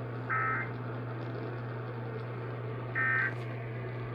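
Emergency Alert System end-of-message signal: two short bursts of digital data tones, one just after the start and another about three seconds in, marking the end of the alert. A steady low hum runs underneath.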